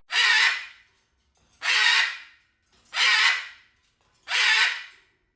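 A bird giving four harsh, cawing calls in a steady series, one about every second and a quarter.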